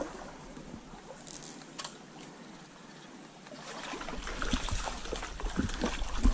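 Water of a shallow trout stream running over a rocky bed. From about four seconds in, short knocks and rustling grow louder over the water.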